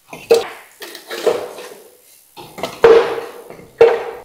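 Split firewood logs knocked and stacked into the firebox of a metal wood-burning stove: several hard wooden clunks, each followed by a short ring.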